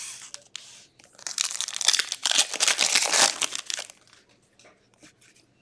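Wrapper of a 2022-23 Upper Deck Credentials hockey card pack being torn open and crinkled: a dense crackle lasting about three seconds, followed by a few faint clicks as the cards are handled.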